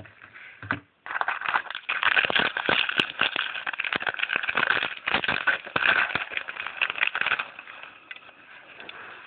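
Foil trading-card pack wrapper being torn open and crinkled, a dense crackling and rustling that starts about a second in and dies down to a quieter rustle near the end.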